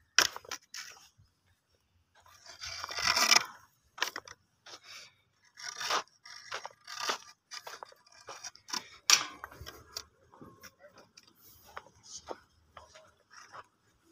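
Cattle feeding: crunching and tearing at fodder in irregular bursts, with a longer rustling scrape about three seconds in.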